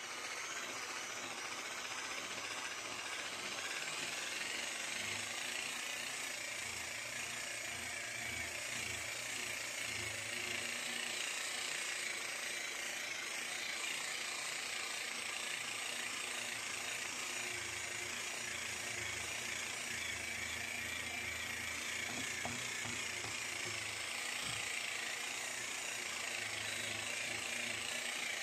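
Electric rotary polisher running steadily with its buffing pad pressed against a fiberglass hull, buffing out oxidized gelcoat. A continuous motor whine that wavers slightly as the pad is moved across the surface.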